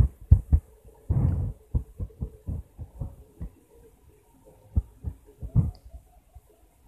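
Irregular dull thumps and taps of fingers on a phone's touchscreen, picked up by the phone's own microphone while drawing, over a faint steady hum.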